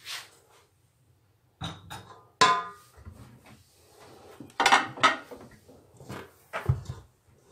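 A spatula and hands knocking and scraping against a stainless-steel mixing bowl: several separate clatters, one with a brief metallic ring.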